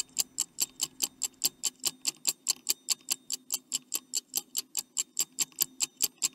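Stopwatch ticking sound effect, sharp even ticks about four a second, marking the time to answer a quiz question.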